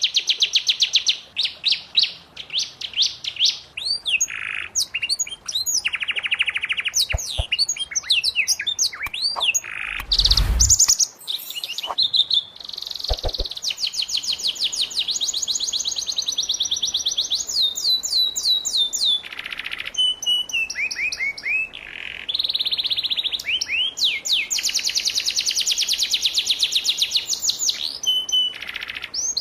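Domestic canary singing, long, very fast trills and rolling phrases one after another. A brief thump about ten seconds in.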